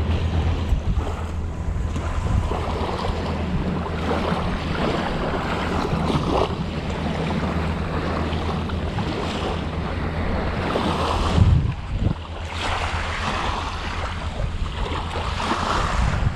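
Wind blowing across the microphone, a steady low rumble, over small waves lapping at the sandy shoreline, with one brief louder bump a little past the middle.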